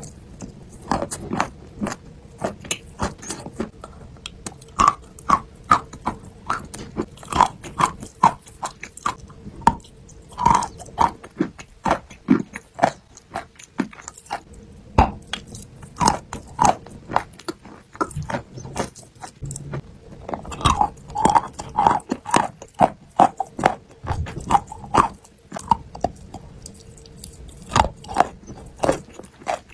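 Close-miked biting and chewing of a block of chalk: many sharp, irregular crunches with crumbly chewing between them.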